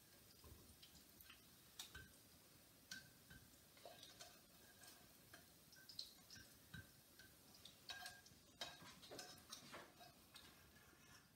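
Faint, irregular clicks and taps of a metal utensil against a frying pan as cooked celery is scooped out onto a plate, some taps leaving a short ring from the pan.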